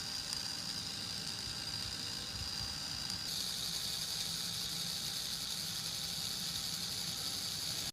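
Small electric motor running steadily, a high whine over a hiss and low rumble; the whine shifts slightly about three seconds in.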